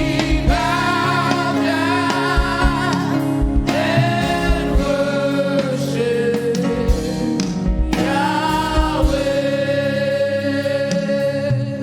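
Gospel worship music: voices singing long held, wavering notes over sustained chords, with low drum hits underneath.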